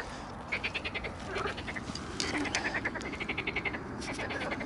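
Frogs calling: a run of short, fast-pulsed rattling trills, several in a row about a second apart.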